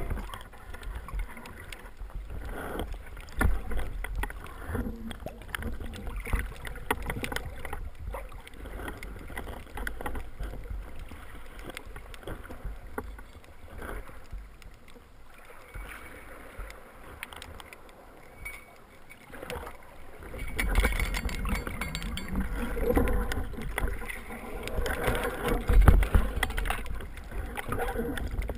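Muffled underwater water noise of a spearfishing dive, with scattered small knocks and clicks. From about two-thirds through it grows louder, with low rumbling and sloshing as the diver comes up just under the surface.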